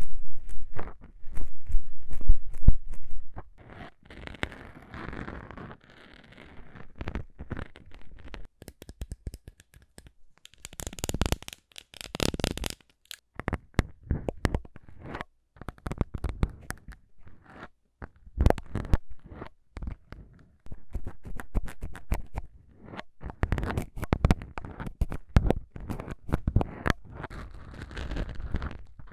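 Plastic syringes worked right against foam-covered microphones, the needle tips poking and scraping the foam and the plungers clicking: many short clicks and scratches with a couple of bursts of hissing noise. Near the end, fingernails scratch the foam covers.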